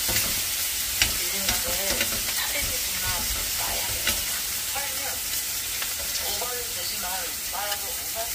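Pork belly slices sizzling on a hot cast-iron grill pan, with sharp clicks of metal tongs against the pan as the slices are moved and turned, the loudest about a second in.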